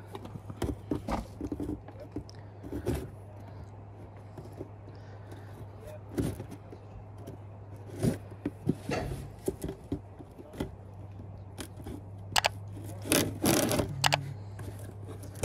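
Scattered clicks, knocks and scrapes of car parts being handled, with a louder stretch of scraping and rustling near the end, over a steady low hum.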